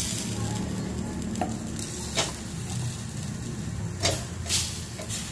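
Chunks of green papaya dropped into a stainless pot of chicken broth, splashing and knocking a few times as the pieces go in, over a steady low hum.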